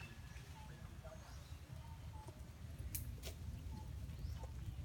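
Several short, faint chirping calls from a small animal, over a low rumble, with two sharp clicks about three seconds in.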